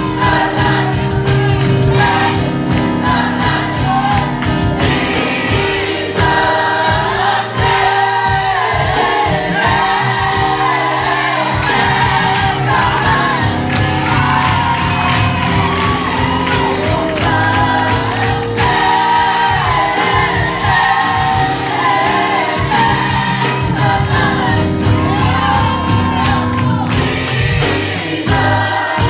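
Live gospel worship music: voices singing together over a band with sustained bass notes and a steady drum beat.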